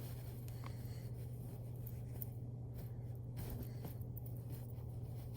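Quiet room tone with a steady low hum and a few faint small ticks and rustles.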